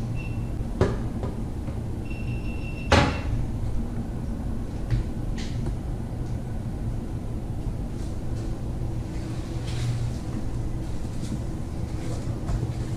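Kitchen cabinet being handled: a brief high squeak, then a sharp knock about three seconds in as a cabinet door or wire-basket drawer shuts, followed by a few lighter clicks and knocks over a steady low rumble.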